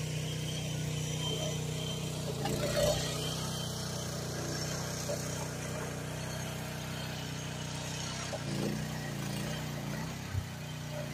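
Groundhog KH14G mini excavator's engine running steadily while the boom and rake attachment are worked. It gives a brief louder clatter about three seconds in, wavers in pitch about eight seconds in, and a short knock comes near the end.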